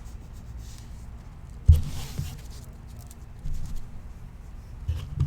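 A sharp thump about two seconds in, followed by a brief rustle, then a few softer knocks near the end over a low steady hum.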